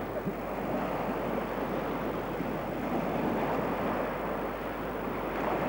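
Small waves breaking and washing up a pebble shore, a steady rushing noise mixed with wind blowing on the microphone.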